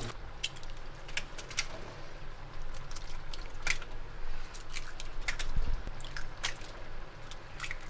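Shelled, thawed eggs being dropped into a stainless-steel bowl and squished and stirred by hand: irregular small sharp clicks and wet squishing, with one dull low thud past the middle.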